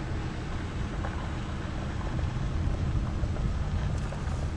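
Car driving on a dirt road: steady low rumble of engine and tyres on gravel, with wind buffeting the microphone.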